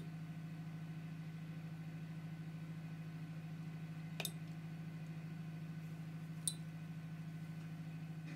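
A steady low hum, with two short clicks a little over two seconds apart past the middle.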